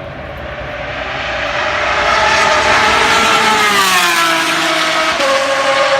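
Race-track car engine at high revs, growing louder over the first two seconds. Its pitch sweeps down around the middle, then steps up a little near the end.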